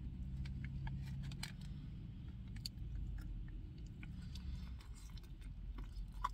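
Close-up mouth sounds of a man biting and chewing a deep-fried pickle spear whose batter is soggy: small wet clicks and ticks, with one sharper click near the end, over a low steady hum in the car cabin.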